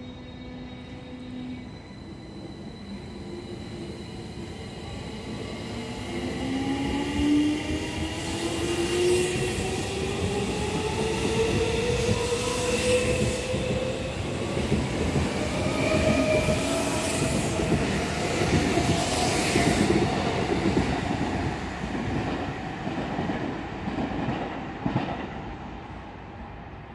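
Tokyo Metro 16000 series electric train pulling away from the platform. Its traction inverter and motors whine, rising steadily in pitch as it accelerates, over a growing wheel-on-rail rumble and clatter as the cars pass. The sound fades away near the end.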